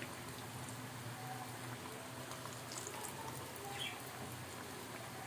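Pakoras of gram-flour batter deep-frying in hot ghee, a steady sizzle with faint scattered crackles.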